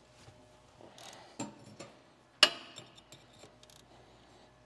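Small clicks and clinks of a metal wrench being handled and fitted onto a brake caliper bolt, with one sharp metal clank about two and a half seconds in.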